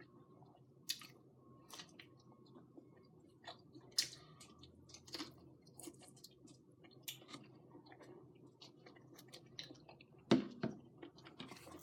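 Faint, close-miked eating sounds: sporadic chewing and small mouth clicks, with a louder thump about ten seconds in.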